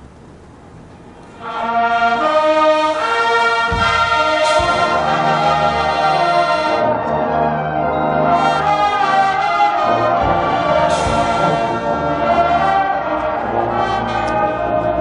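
High school marching band playing: after a quieter moment the brass comes in loud about a second and a half in with sustained full chords, punctuated twice by low drum hits and crashes.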